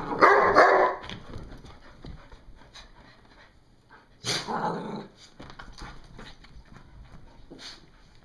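Dogs play-fighting, barking and growling: a loud burst in the first second and another about four seconds in, with softer scuffling in between.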